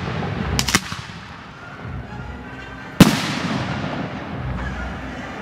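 Aerial firework shells bursting: a quick pair of cracks about half a second in, then a single sharp, loud bang about three seconds in whose echo fades away.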